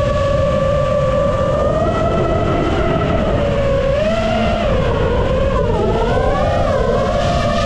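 FPV quadcopter's brushless motors and propellers whining, the pitch sagging and rising again as the throttle changes while it swoops low, over a low rumbling noise.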